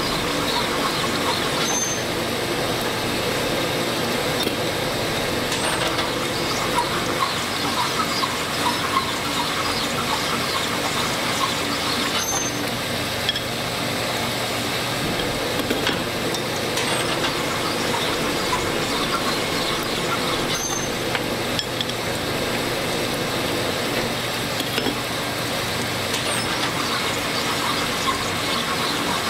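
Honing machine running with an MGB rocker arm worked on its oiled mandrel: a steady grinding hiss as the new bushing is honed out to size to fit the shaft.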